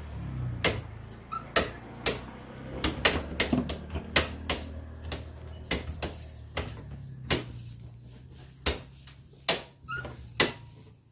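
Sharp metallic clicks, roughly one a second, from a hand-operated manual well-drilling rig being worked under load to lift a person, over a low steady hum.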